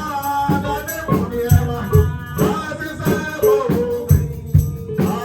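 Church worship music with a steady beat and singing.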